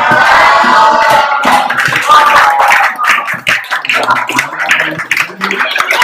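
A small group clapping and cheering, with voices shouting over the claps, prompted by an 'applause' sign.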